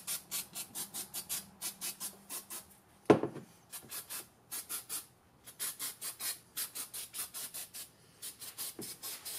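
Rapid rhythmic scraping strokes, about four or five a second, in runs broken by short pauses, with a single thump about three seconds in.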